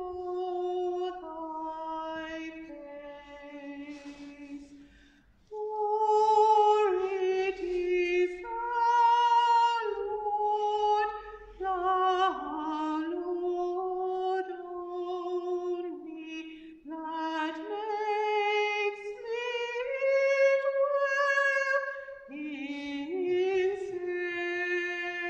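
A woman's voice singing a slow hymn melody unaccompanied, in long held notes that move stepwise, with a short break between phrases about five seconds in.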